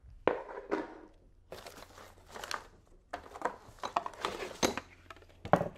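Packaging rustling and crinkling in irregular bursts as hands rummage in an opened cardboard box, unpacking the parts of an IKEA Not floor lamp.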